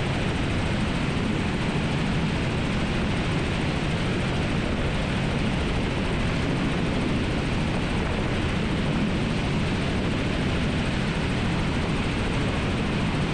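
Robinson R44 helicopter in cruise flight: steady rotor and engine noise.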